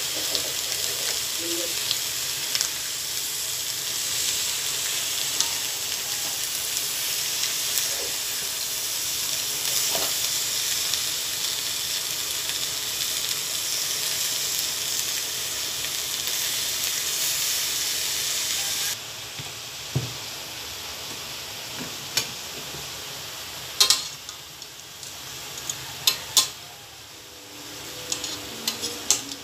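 Tuna black meat sizzling as it cooks down in vinegar in a metal wok, a steady hiss that drops abruptly about two-thirds of the way through. Metal tongs click against the pan several times near the end as the pieces are turned.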